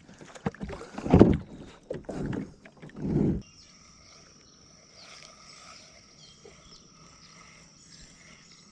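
Kayak paddling noises: three loud splashing, knocking strokes about a second apart. About three and a half seconds in they cut off suddenly to quiet outdoor ambience, a steady high-pitched insect drone with scattered bird chirps.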